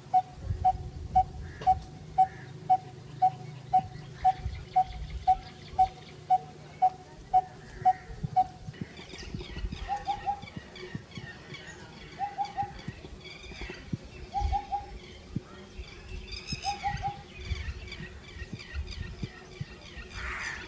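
A bird calling with one short, evenly repeated note about twice a second, which stops about eight seconds in. After that come short groups of two or three notes every couple of seconds, with higher chirps from other birds.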